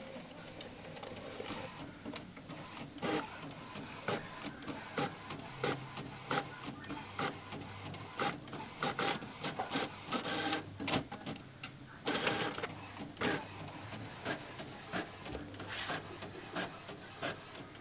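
HP Officejet Pro L7580 inkjet printer printing pages: a steady mechanical hum with frequent, irregular clicks and clacks from the print-head carriage and paper feed.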